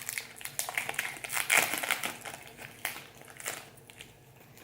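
Foil wrapper of a baseball card pack crinkling as it is pulled and worked open by hand; the pack is stubborn to open. The crinkling is loudest about a second and a half in and fades out in the second half.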